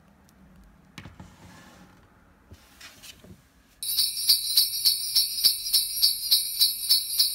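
Sleigh bells start suddenly about four seconds in and jingle in a steady rhythm, about three shakes a second. Before that, only a few faint clicks of handling.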